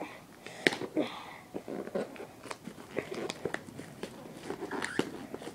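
Plastic shrink wrap crinkling and crackling in irregular snaps as it is torn and peeled off a boxed card set by hand.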